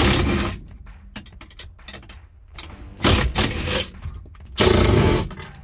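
Ratchet wrench clicking in three short runs, backing out the nuts and bolts that hold the dashboard in: one right at the start, one about three seconds in and one near the end.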